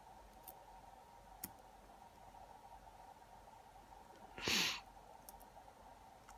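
A few faint small clicks of lock parts being handled, and about four and a half seconds in, one short exhaled breath like a sigh.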